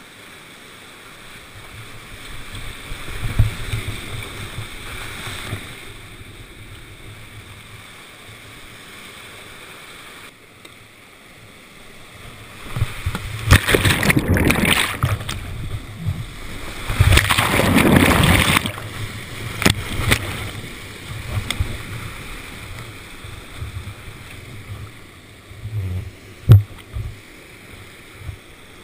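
Creek whitewater rushing past a camera on a whitewater canoe running a rapid. About halfway through come two loud surges of crashing water as the boat plunges through the whitewater and the camera is swamped, then calmer flowing water with a short thump near the end.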